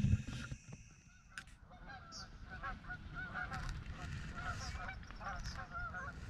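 Night insects trilling steadily for the first second or so, then a flock of white domestic geese honking, with many short calls overlapping several times a second.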